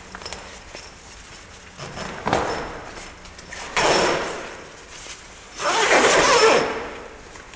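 Nylon tent fabric rustling as it is tugged and handled, in three swelling bursts about two, four and six seconds in, the last the loudest.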